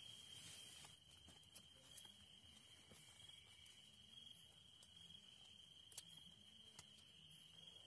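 Faint night insects: a steady, shrill trill, with a higher short chirp every second or so and a few faint clicks.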